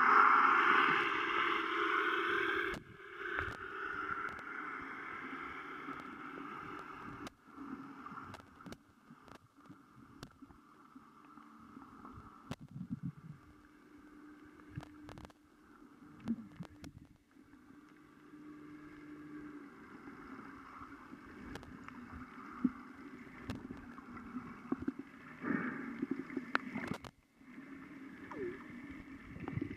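Sound recorded by a camera underwater in shallow sea water: a steady water noise with many scattered sharp clicks, louder for the first three seconds.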